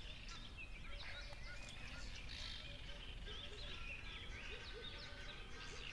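Many small songbirds chirping and singing at once, short quick overlapping notes, over a steady low background rumble.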